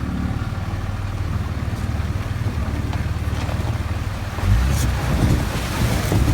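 Dodge Ram 2500's 5.9-litre Cummins turbodiesel running under load while the truck drives through a river. Water rushes and splashes over the engine sound, louder from about four and a half seconds in.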